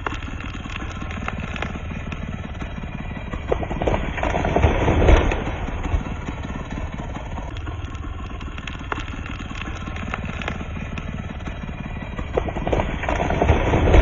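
Two-stroke chainsaw running at idle, revved up twice: once about four to five seconds in and again near the end.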